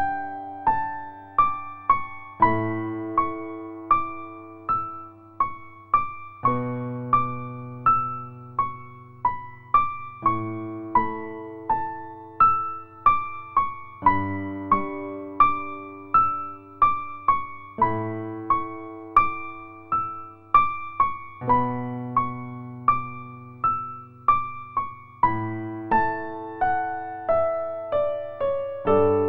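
Background music: a piano-style keyboard playing a steady run of single notes over held chords that change about every four seconds.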